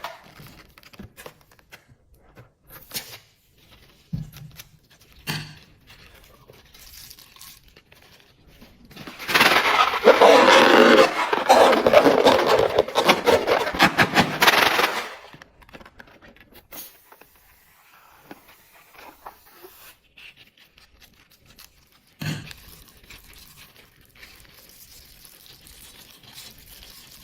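Slime being squeezed and worked by hand: scattered sticky clicks and crackles, with a loud stretch of dense crackling in the middle lasting about six seconds.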